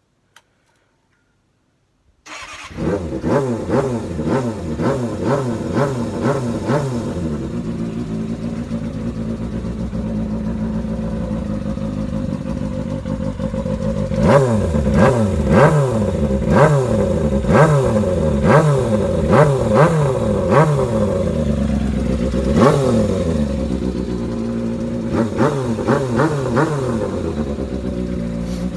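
Kawasaki Balius 250 cc inline-four motorcycle engine, breathing through a handmade silencer. It starts about two seconds in and then idles, revved up and down in repeated quick blips with steadier idling between them.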